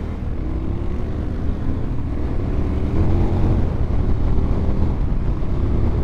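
A KTM 1290 Super Adventure R's V-twin engine accelerating on the road. Its note climbs in pitch in steps as the bike shifts up, and it grows louder over a low rush of wind and road noise.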